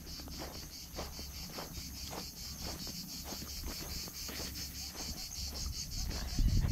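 Crickets chirping in a steady rapid high-pitched pulse, about six pulses a second, over footsteps on dry field soil. A louder low rumble comes in near the end.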